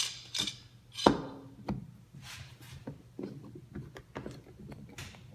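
Steel F clamp being set on a board and tightened down onto a worktable: a few knocks of the clamp against wood, the loudest about a second in, with scattered clicks and rubbing as the bar slides and the screw is turned.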